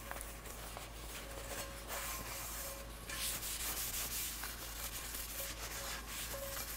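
Paper towel rubbing over a freshly oiled Stargazer cast iron skillet, inside and then the underside, a soft scratchy wiping in strokes that gets louder about three seconds in. It is the excess oil being wiped off before the pan goes into the oven to season.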